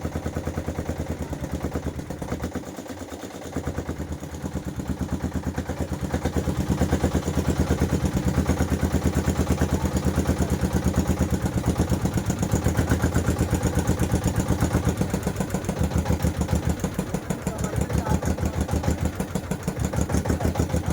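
Boat engine running with an even, rapid beat; it drops away briefly about three seconds in, then runs louder from about six seconds on.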